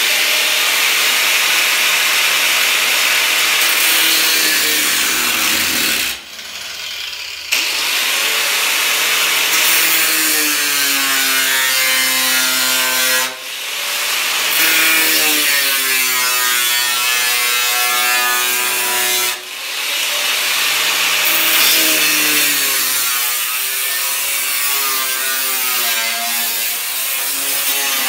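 Electric angle grinder with a cut-off wheel cutting through sheet-steel body panel: a loud grinding whine whose pitch sags and recovers as the wheel bites into the metal. It eases off for about a second and a half around six seconds in, and dips briefly twice more.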